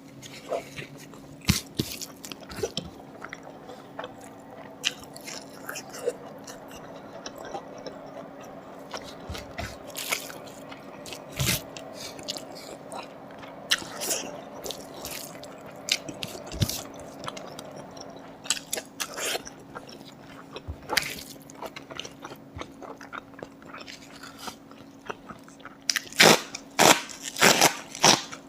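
A person eating close to the microphone: wet chewing with scattered crisp clicks and crunches, a run of louder crunches near the end, over a faint steady hum.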